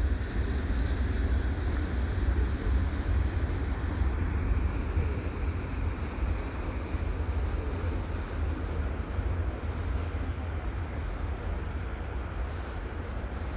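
Steady rumbling noise of a slow freight train's tail end rolling away on the rails, fading gradually, over a steady low rumble of highway traffic.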